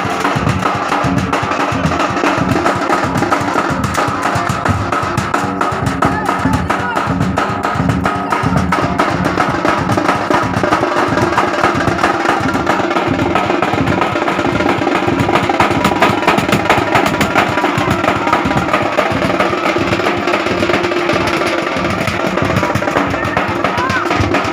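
Loud music driven by fast, dense drumming, going on steadily without a break.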